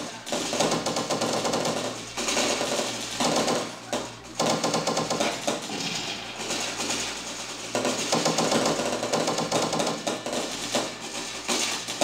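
Simulated machine-gun fire in a weapons training simulator: several long bursts of rapid shots with short breaks between.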